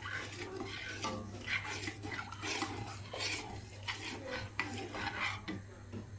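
A spoon stirring a thickening milk-and-starch cream in a stainless steel pot on the hob, scraping the pot in repeated strokes about twice a second.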